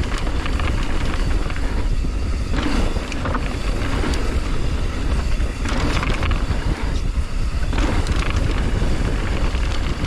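Mountain bike riding fast down a dirt jump line: wind rushing over the microphone and tyres rolling over dirt, a loud, steady noise with a few brief surges.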